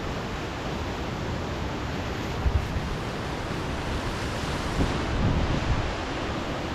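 Steady rushing of a mountain stream, with a few low bumps of wind on the microphone.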